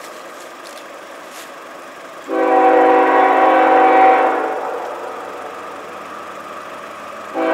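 CSX freight locomotive's air horn sounding a long blast of about two seconds, a chord of several notes, fading as it ends. A second blast starts near the end.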